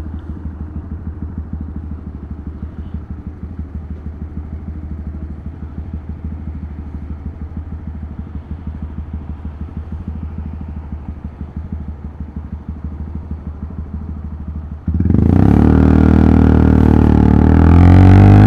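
Honda Grom's 125cc single-cylinder engine running at low revs with a steady pulsing beat. About fifteen seconds in it suddenly gets much louder as the throttle opens, and the pitch climbs and dips near the end.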